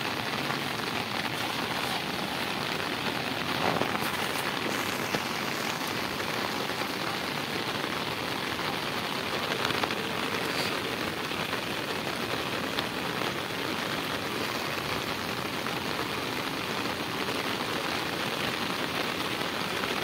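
Steady rain falling on open river water, an even hiss with no break.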